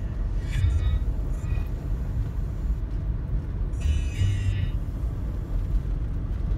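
Steady low rumble of a vehicle driving slowly over a gravel dirt road, heard from inside the cab. Two brief higher-pitched sounds come through about half a second in and again about four seconds in.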